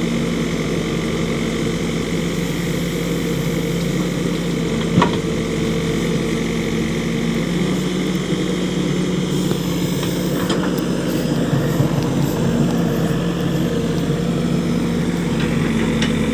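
Diesel engine of a heavy machine running steadily, with one sharp knock about five seconds in and a few lighter clanks near the end.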